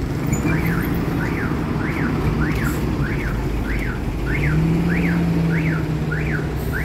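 A vehicle's electronic warning alarm giving a rising-and-falling chirp over and over, a little under two a second, over the steady hum of an idling bus engine. The engine hum swells for a couple of seconds after the middle.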